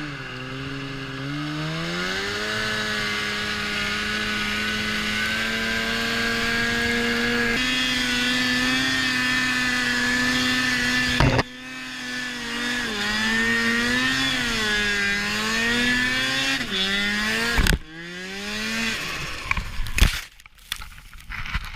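Ski-Doo snowmobile engine running hard, its pitch climbing in the first two seconds and then holding high and steady. Later it rises and falls with the throttle, with sudden cuts twice where the sound breaks off and picks up again.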